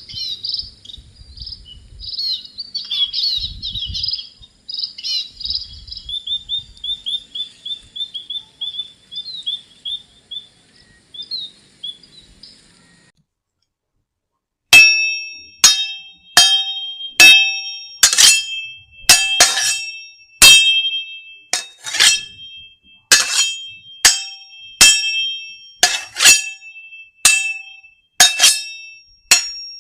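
Small birds chirping, with a fast trill of repeated notes, for about the first thirteen seconds. After a short pause, a ringing metal object is struck over and over, unevenly, at roughly two strikes a second. Each strike rings out briefly at the same few pitches.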